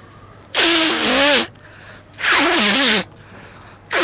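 A man blowing his nose hard into a handkerchief: three long, loud blows with a wavering honk. The third starts just before the end.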